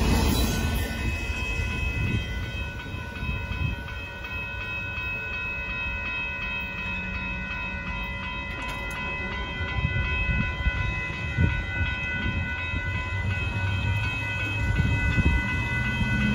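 Railroad grade-crossing warning bell ringing steadily over the low rumble of a freight train moving away. The bell stops right at the end.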